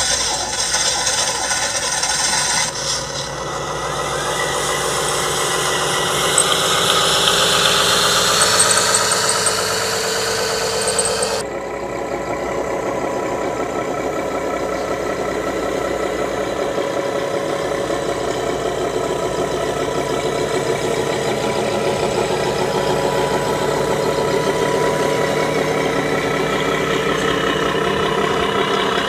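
Engine sound of 1/10-scale radio-controlled trucks running. The pitch rises over several seconds as the truck pulls away. About eleven seconds in the sound changes abruptly to another truck running steadily.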